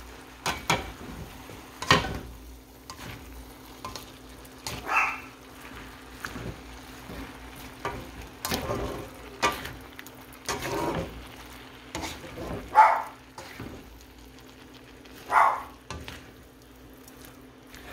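Plastic spatula stirring and scraping shrimp and vegetables around a pan over light frying sizzle, with several short louder scrapes, the loudest about thirteen seconds in. A steady low hum runs underneath.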